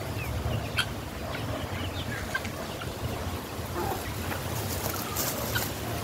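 Farmyard fowl calling faintly in the background, short scattered calls over a steady low rumble.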